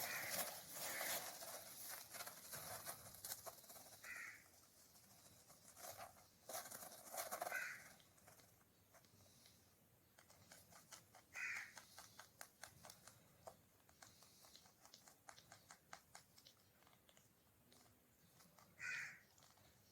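Indian ringneck parrot chick giving short calls every few seconds, with faint scratching and clicking in between.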